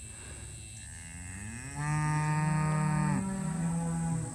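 A cow mooing: one long, drawn-out moo that builds about a second in, is loudest in the middle and tails off just before the end. She is a cow whose calf has recently been taken from her.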